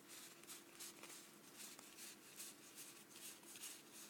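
Faint, soft swishes of trading cards being slid one over another while flipping through a pack, several a second, with a faint steady hum beneath.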